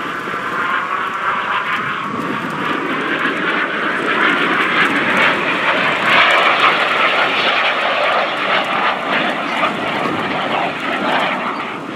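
Aermacchi MB-339 jet's Rolls-Royce Viper turbojet as the aircraft flies a display pass. The jet noise swells to its loudest about halfway through and eases off near the end.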